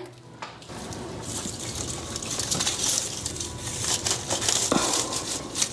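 Rustling and crinkling of artificial Christmas tree branches and glittery decorative picks as they are pushed in and arranged at the treetop, with small scratchy clicks throughout.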